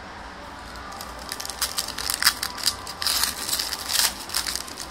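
Foil wrapper of a trading-card pack being torn open and crinkled by hand: a rapid run of crackles that starts about a second in and goes on until near the end.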